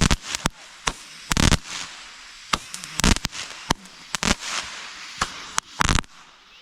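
Consumer fireworks going off: an irregular run of sharp bangs and pops, more than a dozen in a few seconds, some close together, with a fading trail after the louder ones.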